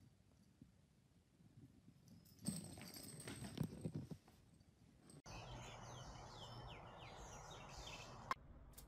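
Faint, near-quiet room at first, then about two seconds of irregular knocks and scuffling as a cat moves about on a wooden floor. About five seconds in the sound changes to steady outdoor background hiss with a run of short high chirps.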